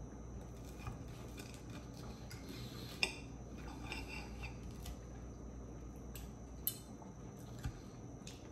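Forks and a knife clinking and scraping against ceramic plates as food is cut and picked up, in scattered small clicks, the loudest about three seconds in.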